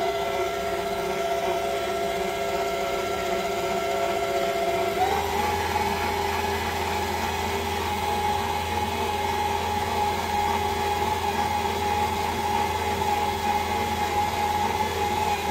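Stand mixer's electric motor running steadily with a dough hook working flour and water into pizza dough. Its whine steps up to a higher pitch about five seconds in.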